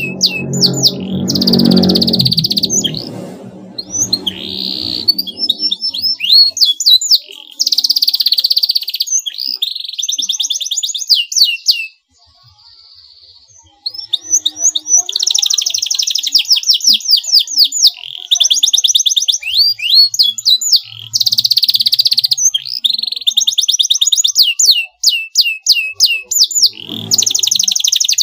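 Canary singing: long runs of fast trills and rapidly repeated high notes, broken by a short pause about twelve seconds in. This is a canary lure song, meant to set other canaries singing in answer.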